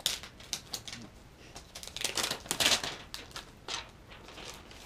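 Clear plastic packaging film crinkling and rustling as it is handled and peeled off a new tablet, with a few sharp clicks; the crinkling is loudest about two to three seconds in.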